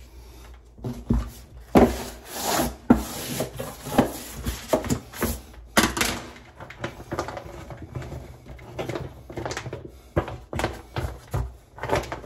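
York peel-and-stick wallpaper being handled and rubbed against the wall under a sink: irregular crinkling and rubbing with scattered light knocks.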